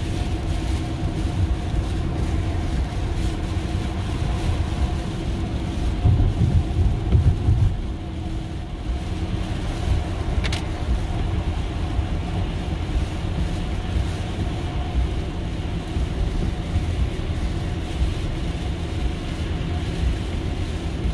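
Electric Tesla car heard from inside the cabin at highway speed on a wet road: steady tyre and road noise with rain spray, a low rumble that swells about six seconds in, and a faint steady hum. A single sharp click sounds about ten seconds in.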